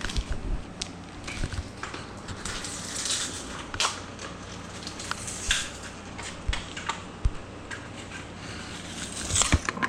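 Irregular scraping, crackling and light clicks of hand work on a rifle buttstock with its recoil pad removed, with a louder cluster of scrapes and knocks near the end.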